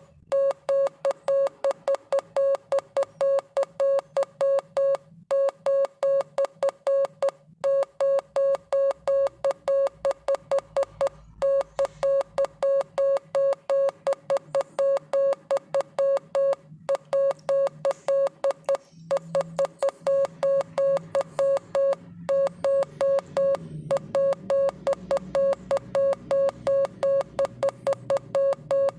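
Morse code sent as a single steady beeping tone, short and long beeps in quick succession with brief pauses between groups.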